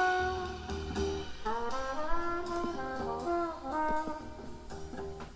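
Music played back through a Pioneer CS-51 bookshelf speaker whose tweeter crossover has been lowered with two added oil capacitors. An instrumental passage of a song with no singing: a brass-like melody of held notes that slide from one pitch to the next.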